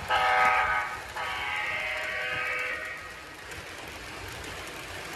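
Chime-horn sound from an O gauge model Amtrak electric locomotive sounding two blasts, a short one then a longer one. After that the train runs past on the track with a steady rumble.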